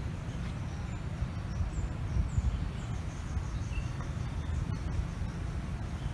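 Outdoor background: a steady low rumble with a few faint bird chirps over it.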